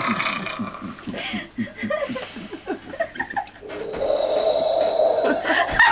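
A man's voice making rapid, breathy wordless vocal noises, about four a second, then a long held vocal tone from about three and a half seconds in: a mime's vocal sound effects.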